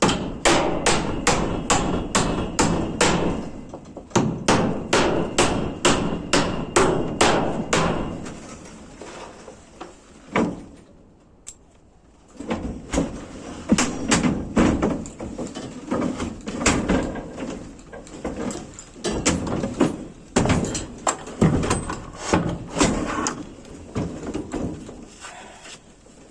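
Hammer blows, struck in quick runs of about three a second with short pauses between runs.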